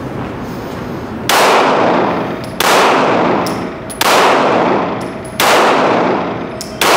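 Five shots from a Glock 9 mm pistol, evenly spaced about one and a half seconds apart, each ringing on in the echo of an indoor range.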